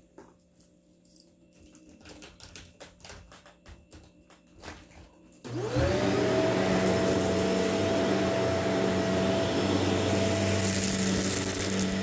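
A few faint clicks, then about five and a half seconds in a Shark Rotator Powered Lift-Away upright vacuum switches on. Its motor whines quickly up in pitch and settles into a loud, steady run.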